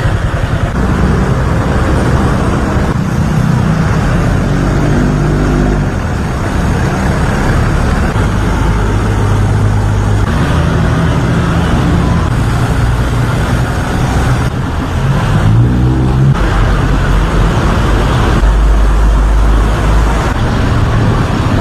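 Steady outdoor noise with engines running, their low hum shifting abruptly several times.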